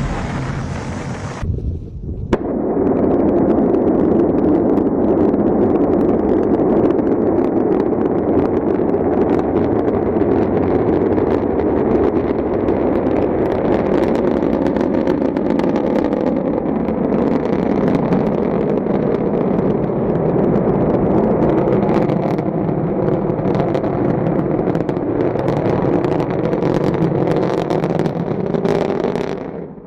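Rocket engine roar with crackling, loud and steady. An abrupt cut about two seconds in replaces a brighter, hissier roar, and the sound falls away just before the end.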